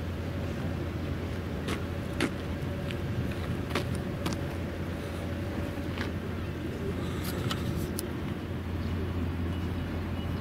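Steady low mechanical hum with a constant whining tone above it, like an engine or machinery running without change, and a scattered handful of light clicks and taps.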